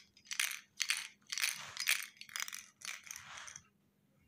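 A plastic baby rattle shaken in quick strokes, about two rattles a second, stopping shortly before the end.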